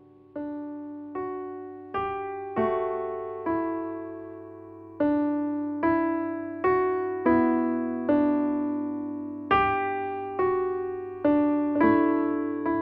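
Slow background piano music: notes and chords struck about once a second, each ringing and fading before the next.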